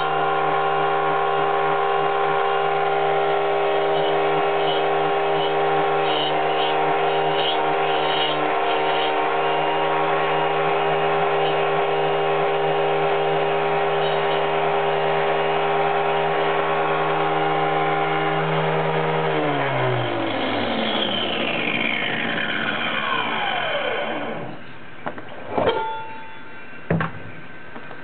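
Angle grinder on a circle-cutting jig running steadily at full speed while it cuts through the wood, then switched off about twenty seconds in and spinning down with falling pitch over a few seconds. A few sharp knocks follow near the end.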